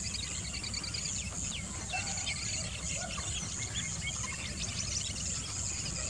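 Wetland ambience: a steady high insect drone with many small, quick bird chirps and twitters scattered through it, over a low rumble.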